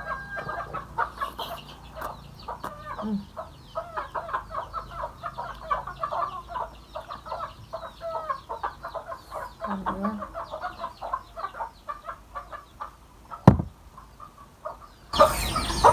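Chickens clucking, a dense, continuous run of short calls. A sharp click comes about 13 seconds in, and a loud burst of noise near the end.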